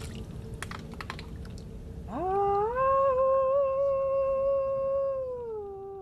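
Water splashing and dripping with small clicks as a hand scoops and pours it. About two seconds in, a single long pitched note slides up, holds steady for about three seconds, then slides down and fades out; it is the loudest sound here.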